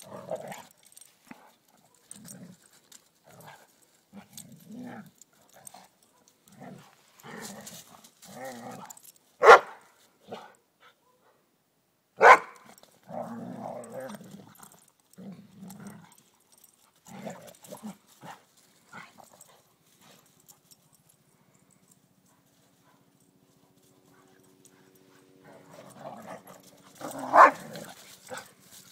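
Two Labradors play-fighting: a stream of short growls and grunts broken by a few sharp barks, the loudest about a third of the way in and near the end, with a lull of a few seconds past the middle.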